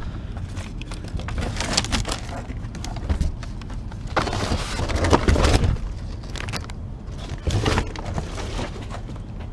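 Cardboard and plastic packaging rustling and knocking as a new chainsaw and its accessories are unpacked and handled, busiest about halfway through, over a steady low rumble.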